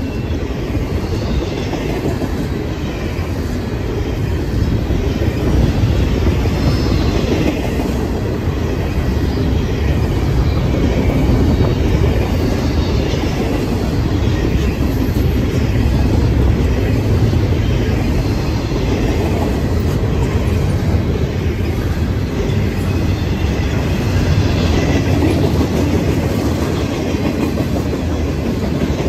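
CSX freight train's cars rolling past at a grade crossing: a steady rumble of steel wheels on rail with clickety-clack over the rail joints and a faint high wheel squeal.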